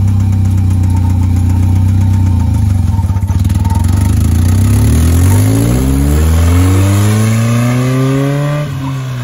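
Mazda Miata's four-cylinder engine, which has a rod knock, running steadily and then revving up, its pitch rising for about four seconds before dropping suddenly near the end.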